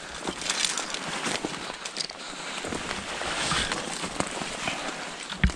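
Footsteps through forest-floor litter and twigs, with branches brushing past: an uneven run of rustles and small snaps, and a heavier step near the end.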